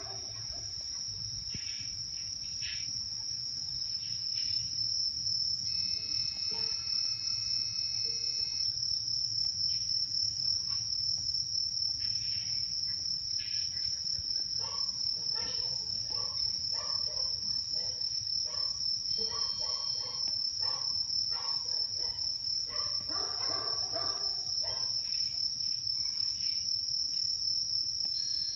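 Steady, high-pitched insect chorus of crickets, with a faint pulsing layer above the main trill. Fainter, unidentified sounds come and go underneath: a brief held tone about a quarter of the way in, and a run of short calls or knocks through the second half.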